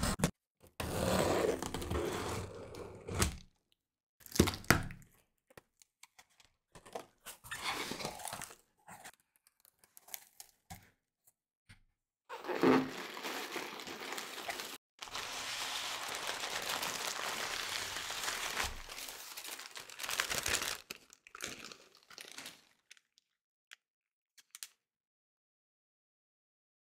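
Packing tape on a cardboard box slit with a utility knife and torn away, then the flaps opened and crumpled paper and plastic air pillows rustled and crinkled, in several bursts of a few seconds each. A few light handling clicks come near the end.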